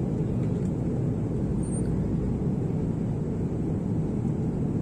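Steady low roar of a jet airliner's cabin in flight, heard from a passenger seat: engine and airflow noise.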